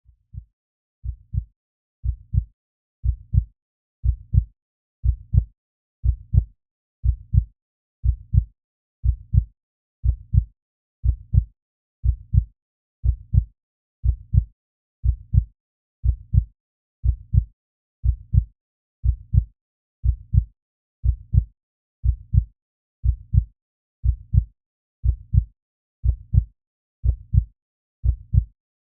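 Slow human heartbeat: a steady double thump (lub-dub) about once a second, about 60 beats a minute, low and dull with silence between beats. It fades in over the first few beats and then holds an even level.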